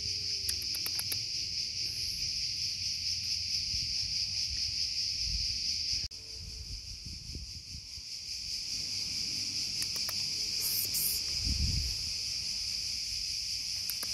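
Steady, high-pitched drone of an insect chorus, unbroken throughout, with a low rumble underneath.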